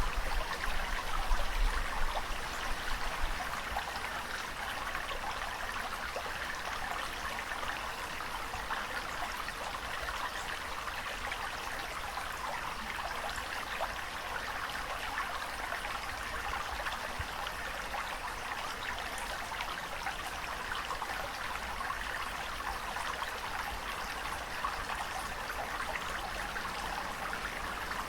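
Steady rushing, trickling water, with a few louder low surges in the first few seconds.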